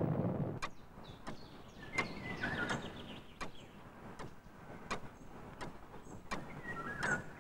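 A deep rumble fading out within the first second, then sharp, evenly spaced clicks about one and a half a second, with faint short chirps twice.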